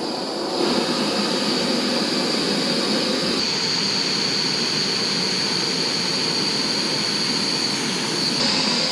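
Optimus Crux canister gas stove burner running at full flame under a pot of water, a steady loud hiss with a high edge, getting louder in the first second as the flame is turned up.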